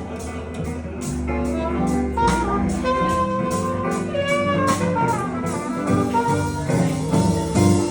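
Live blues band playing an instrumental passage between sung lines: a lead melody line with held, bending notes over upright bass, guitar and a steady drum beat.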